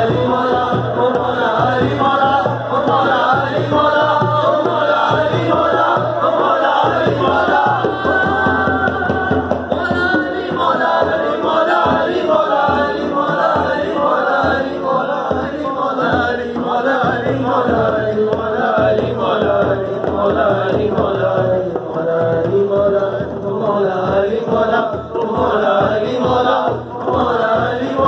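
Male voices singing a devotional nasheed, a lead singer amplified through a microphone, over a steady hand-drum beat.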